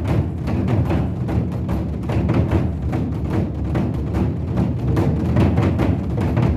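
Korean drums (buk) beaten in quick, continuous strokes, with a deep booming body under sharp strikes.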